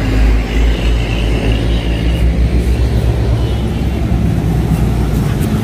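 Isuzu cargo truck's diesel engine idling with a steady low rumble.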